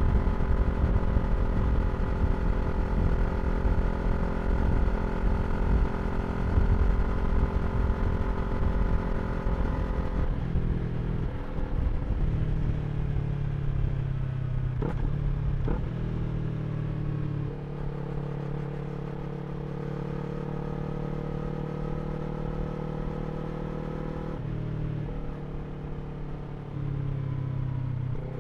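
2023 Yamaha R3's parallel-twin engine through an Akrapovič slip-on exhaust, heard while riding. It runs steadily under wind rush for about the first ten seconds. It then drops to a lower, quieter note, with two quick revs about halfway through, and settles into a steady low note.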